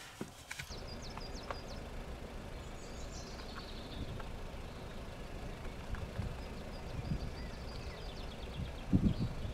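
Outdoor ambience: a steady low rumble with small birds chirping above it, including a short descending trill about three seconds in. A few low thumps come near the end.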